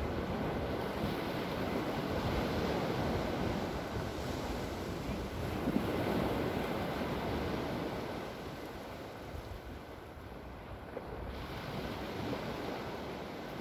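Ocean surf breaking and washing up the beach, with wind buffeting the microphone. The wash swells and eases, quieter for a few seconds past the middle.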